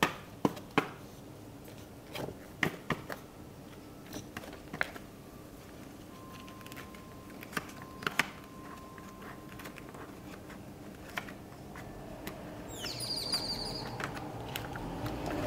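Punched planner pages being pressed onto the metal discs of a disc-bound Happy Planner: a scatter of sharp clicks and snaps as the holes pop over the discs. A low rumble rises over the last few seconds.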